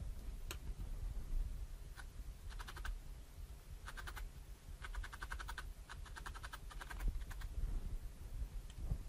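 Felting needle jabbing rapidly into wool over a foam mat: several short runs of fast, crisp clicks, each lasting under a second, over a low background hum.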